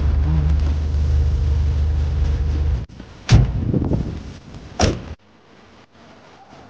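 Land Rover Defender engine and road noise heard inside the cab, a steady low drone that cuts off about three seconds in. Then a loud thump and, a second and a half later, a sharp click from the door as its interior handle is pulled, leaving only a faint outdoor background.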